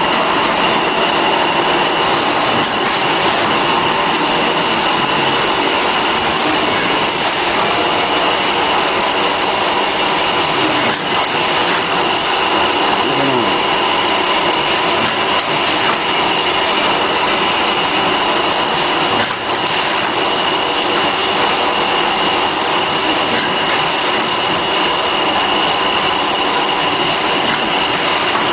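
Vertical form-fill-seal packaging machine running: a steady whirring with a high whine held over it.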